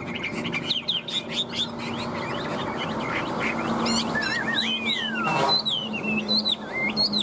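Chinese hwamei (Garrulax canorus) singing a varied song of rapid whistled notes that sweep up and down, with one long falling slur about two-thirds of the way through, over a steady low hum.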